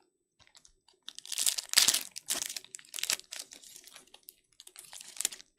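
Foil wrapper of a trading-card pack being torn open and crinkled, a run of crackling that is loudest about a second and a half in.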